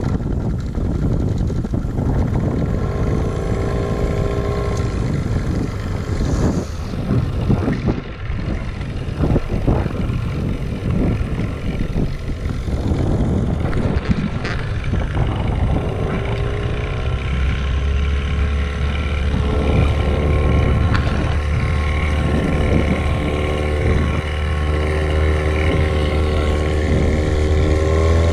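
Johnson 9.9 outboard motor running as the jon boat moves along; about sixteen seconds in it speeds up with a rising pitch and then holds steady at the higher speed.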